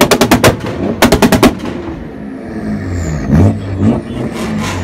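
Audi A4's exhaust backfiring in rapid machine-gun-like volleys: two quick strings of bangs, each about half a second long, a second apart, then a few single pops over the revving engine in the second half.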